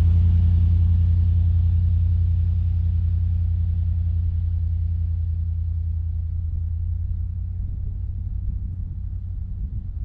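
Pickup truck engine running at a steady low pitch as the truck drives off in four-wheel drive through deep snow, fading steadily as it pulls away.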